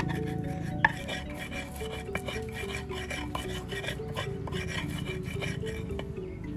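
Stone pestle crushing and grinding garlic cloves and salt against a stone mortar (ulekan and cobek): quick, gritty scraping and rubbing strokes, with a sharp crack just under a second in.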